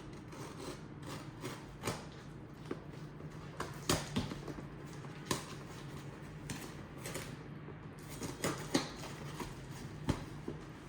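Scattered light clicks and knocks at irregular times, like things being handled, over a steady low hum; the sharpest knock is about four seconds in.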